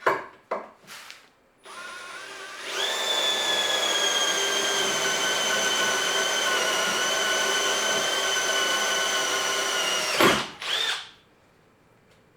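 Power drill running: after a few handling knocks it spins up in two steps, holds a steady high whine for about seven and a half seconds, then is let off and winds down.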